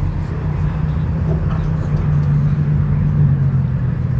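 A car engine idling with a steady low hum that shifts slightly in pitch about two seconds in.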